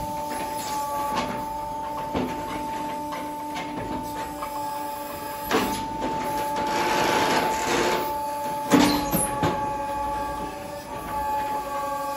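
Hydraulic machinery running with a steady whine as a toothed grab on a boom tears apart compressed alfalfa bales. A few clunks of the grab come through, the loudest about nine seconds in, with a rush of loose hay and dust falling between about six and eight seconds.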